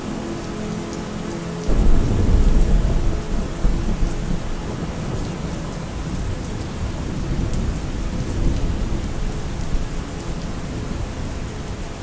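Steady rain with a thunderclap breaking in about two seconds in, a deep rumble that rolls on and slowly dies away over the following seconds.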